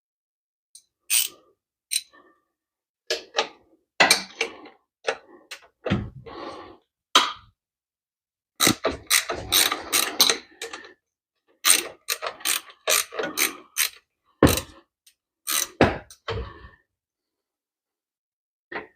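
Ratchet wrench clicking in short irregular runs, with sharp metal clicks and knocks, while working on a motorcycle's kick-starter.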